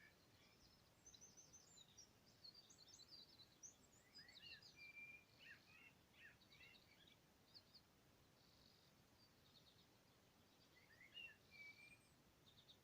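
Faint birdsong: several small birds giving quick high chirps and short trills, busiest in the first half, with another brief burst near the end, over a low steady hiss.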